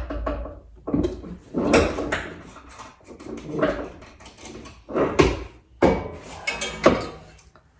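Irregular metal knocks, clunks and scraping as a car's factory coilover strut is worked loose and pulled out of the suspension, the loudest knocks about a second in, near two seconds, a little after five seconds and near seven seconds.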